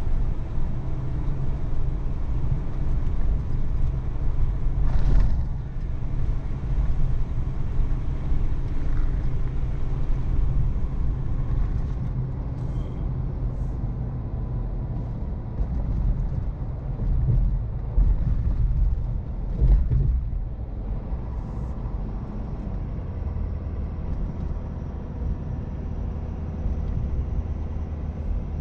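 Road noise inside a moving car: a steady low rumble of engine and tyres, with two brief louder whooshes, about five seconds in and again near twenty seconds.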